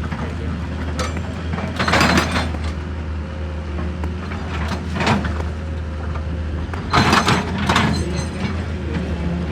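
An engine running steadily with a low hum, broken by three brief harsh noises about two, five and seven seconds in.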